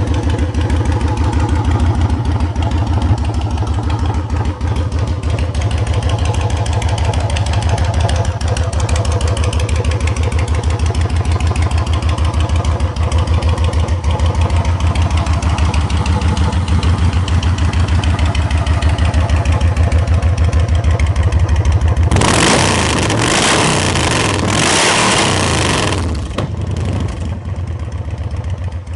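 Yamaha Road Star Warrior's air-cooled V-twin engine running at a steady idle. Near the end a loud rushing noise covers it for about four seconds before the idle is heard again, quieter.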